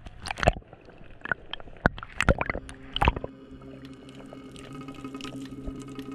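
Water splashing and bubbling around a camera just under the sea's surface: a run of sharp, splashy clicks in the first half. About halfway, sustained tones of background music come in over a faint underwater wash.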